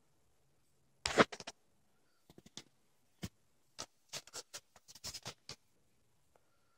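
Ferrets scuffling in a play-fight: irregular scratches, taps and knocks of paws and bodies on the blanket and floor. The loudest scrabble comes about a second in, with a busier run of taps in the second half.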